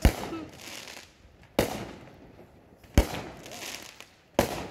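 Fireworks going off: four sharp bangs about a second and a half apart, each trailing off over about a second.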